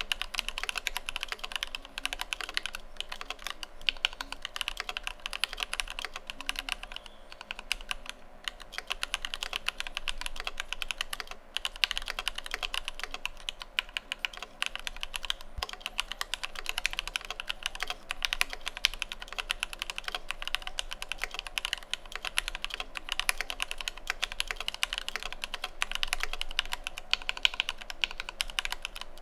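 Fast continuous typing on a mechanical keyboard with lubed Alpaca V2 linear switches and PBT Cherry-profile keycaps, a dense stream of key clacks that thins briefly a couple of times.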